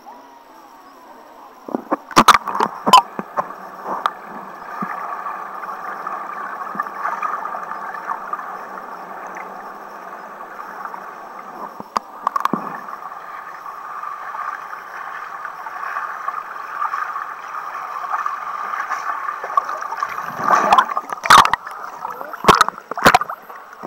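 Muffled, steady water noise heard through an action camera's waterproof housing held underwater in a swimming pool. Sharp splashes and knocks come as it goes under about two seconds in, once in the middle, and several times near the end as it breaks the surface.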